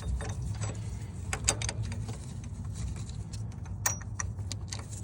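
Irregular metallic clinks and taps as a steel bolt and a harmonic balancer puller are handled and fitted against the crank hub, over a steady low hum.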